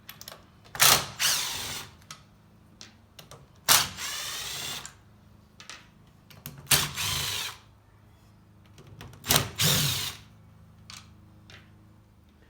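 Power drill-driver backing out the screws of a circular saw's handle housing: four short runs of the motor, each about a second long, starting sharply, with the pitch shifting as it spins up and slows.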